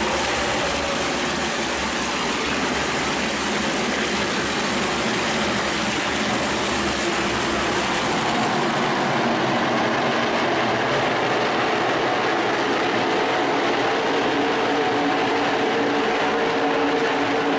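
A pack of NASCAR Whelen Modified race cars at speed, their V8 engines running together in a loud, continuous drone. About eight seconds in the sound thins, losing its deepest and highest parts, and a steadier engine hum comes through.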